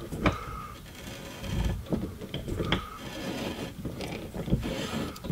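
Ratchet wrench clicking in short, irregular strokes as it backs off the nut on a rear hatch glass hinge stud. The nut, treated with penetrating oil, is turning loose rather than stripping the stud.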